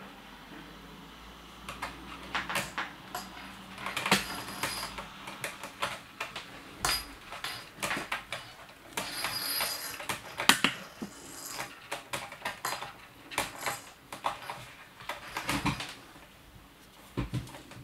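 Quick, irregular taps, scrabbles and rustles of a British Shorthair kitten playing with a ribbon wand toy on a wooden tabletop, the toy's small bell jingling now and then.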